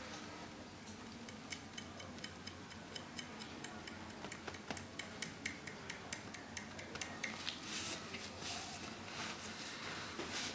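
Tebori hand-tattooing: the metal needle rod is driven into the skin again and again with a steady rhythmic clicking, about three or four strokes a second, working bokashi shading. The strokes stop about eight seconds in, followed by a short rustle.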